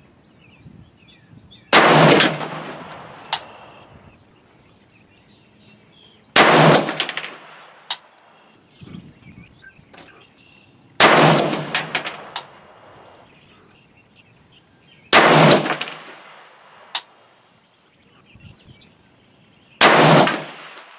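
Five single rifle shots from a 20-inch Rock River Arms AR-15 in 5.56 NATO, fired slowly about four to five seconds apart, each sharp crack trailing off briefly. Lighter metallic clinks follow some of the shots.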